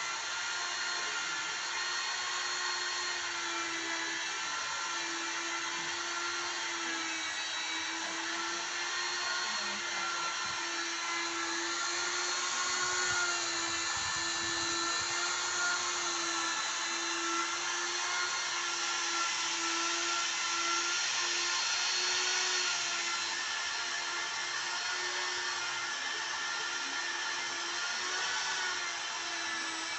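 Hilda mini grinder's small electric motor running steadily with a high whine, a little louder and hissier between about 12 and 23 seconds in.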